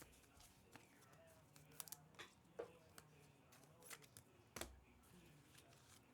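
Faint handling of trading cards and foil pack wrappers: soft, irregular clicks and crinkles, the loudest about two-thirds of the way through.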